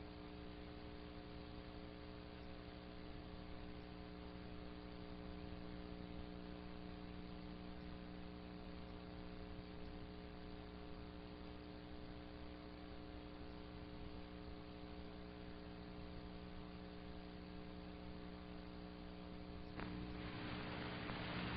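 Steady electrical mains hum with several overtones under a low hiss. Near the end the hiss suddenly grows louder.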